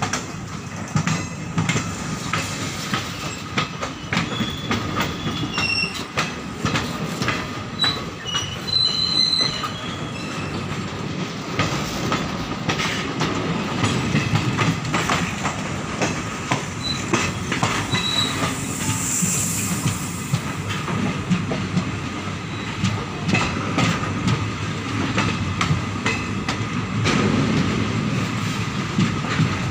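Freight train of covered goods wagons rolling past on the adjacent track, heard through an open coach window. The wheels clatter over the rail joints in a steady run of clicks over a rumble, with a few brief high squeals about a third of the way in and again past the middle.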